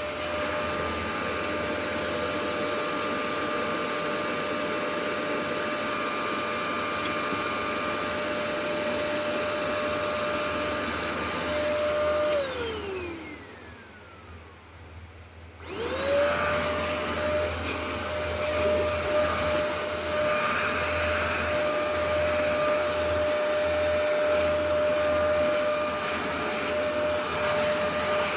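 Vacuum cleaner motor running with a steady whine. About twelve seconds in it is switched off and its pitch falls away as it spins down. A few seconds later it is switched back on and whines up to full speed again.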